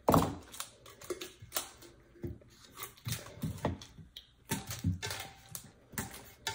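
Handling noises from wrapping heat tape around a paper-wrapped sublimation tumbler: a knock right at the start, then irregular light taps, clicks and crackles as the tape is pulled and pressed down and the cup is turned on the table.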